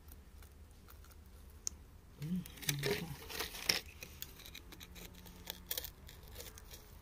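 A metal pick scraping and chipping at crumbly clay and rock around an embedded stone: scattered scratches and small clicks, with a busier burst of scraping from about two to four seconds in.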